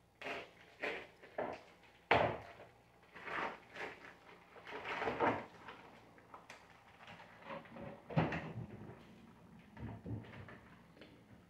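Handling noises: plastic meat packaging rustling and being cut open, and a rack of pork ribs being pulled out and bumped against a plastic tub. The sound comes as a string of short, irregular rustles and knocks, the loudest about two seconds in and again about eight seconds in.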